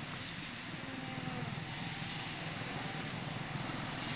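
Steady outdoor background noise: a low rumble with a hiss over it.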